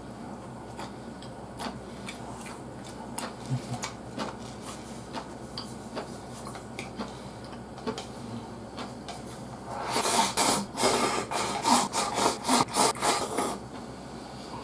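Close-miked eating of mapo glass noodles: quiet chewing and small mouth clicks, then about ten seconds in a few seconds of loud, rapid slurping.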